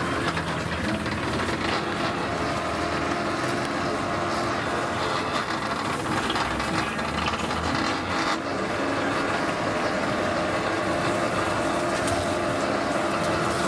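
Busy street-market ambience: a steady wash of background voices and clatter with a low hum under it.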